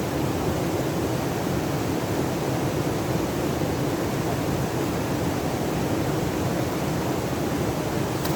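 Steady rush of a waterfall-fed stream, an even wash of water noise that does not change.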